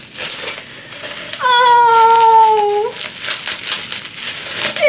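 Bubble wrap crinkling and crackling as it is pulled off a ceramic mug. A long drawn-out vocal sound cuts through it about a second and a half in, held for over a second and falling slightly in pitch.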